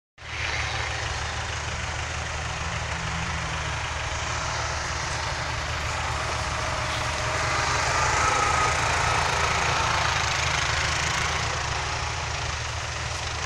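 Off-road vehicle engines, a quad bike and 4x4s, running under load as they drive up out of a water crossing. The sound grows louder about eight seconds in.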